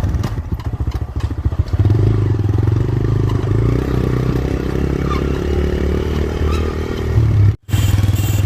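TVS Raider 125 motorcycle's single-cylinder engine running steadily as the bike is ridden, with scraping and clattering clicks over the first couple of seconds. The sound cuts out sharply for a moment near the end, then the engine picks up again.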